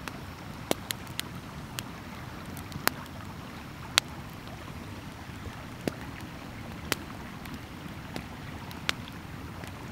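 Wood campfire crackling, with a sharp pop every second or so at irregular intervals, over the steady low rush of a trickling river.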